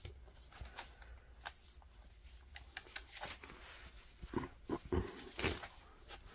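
A thick cardboard board book being handled: soft rubbing and light taps of its stiff pages and lift-the-flaps, with a few louder knocks and scrapes between about four and five and a half seconds in.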